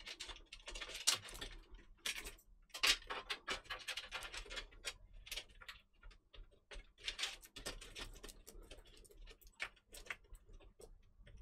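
Bundled PC power cables being fed by hand through a cable-routing hole in a PC case: irregular clicks, taps and rustles as the cables and their plastic connectors knock and scrape against the case.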